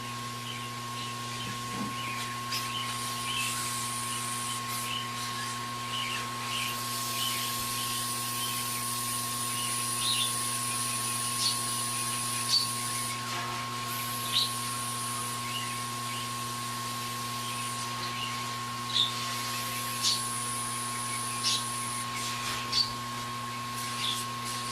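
Hakko hot air rework station blowing on a high heat setting: a steady airflow hiss over a constant electrical hum. A high hiss swells and fades several times, and short sharp high ticks come scattered throughout.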